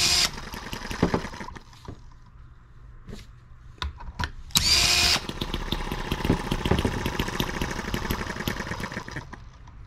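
Cordless drill briefly spinning a small single-cylinder M18 model engine over by its flywheel, in two short whining bursts. After the second burst, about five seconds in, a rapid, even run without the drill's whine follows for about four seconds and then dies away: the engine firing and running briefly on its own.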